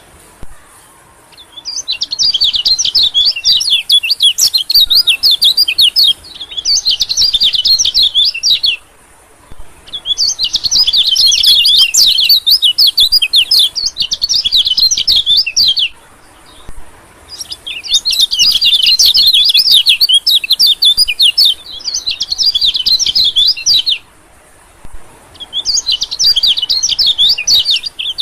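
White-eye (pleci) song played as a bird-lure call: long phrases of rapid, high twittering chirps, each a few seconds long, broken by short pauses of about a second.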